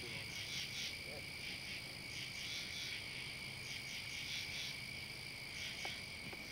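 A chorus of frogs and insects calling: steady high-pitched trills, with repeated groups of short chirps over them.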